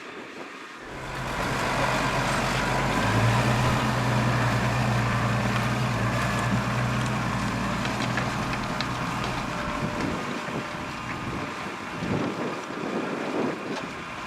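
Massey Ferguson 7616 tractor's six-cylinder diesel engine running steadily under load as it pulls a plough past. It swells about a second in and fades after about ten seconds, with wind noise on the microphone.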